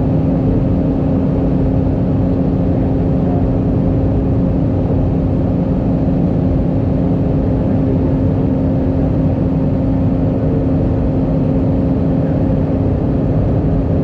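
Cabin noise inside an Airbus A319 in flight: the engines and the airflow make a steady drone with a constant low hum running through it.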